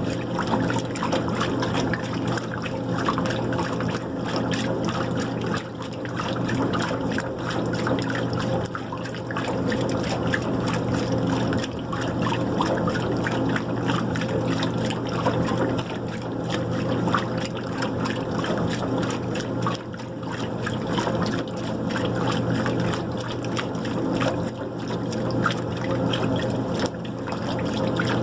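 White-Westinghouse washing machine running, with water trickling and splashing inside the tub over a steady hum.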